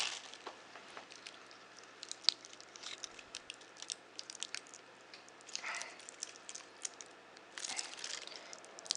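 Plastic protective wrap being crinkled and peeled off a watch strap: irregular small crackles and clicks, with a couple of short rustling stretches.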